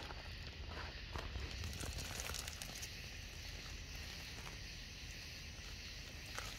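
Faint trickle and crackle of shallow river water creeping over gravel at the bank as the river rises, over a steady low rumble.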